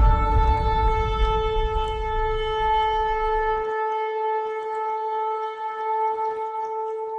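Shofar blown in one long, unbroken held note, steady in pitch, with a low rumble beneath it for roughly the first half.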